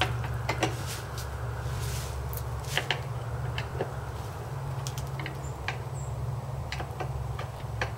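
Clear plastic wrapping on a boat seat crinkling and crackling as it is handled, in scattered sharp clicks, over a steady low hum.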